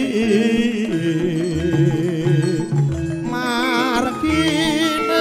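Javanese gending performed live: a voice singing long notes with wide vibrato over the ensemble, with deep drum strokes about every second and a half.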